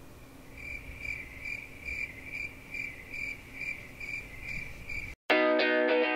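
Cricket chirping in an even rhythm, a little over two chirps a second, then cutting off suddenly. Loud electric guitar music starts about five seconds in.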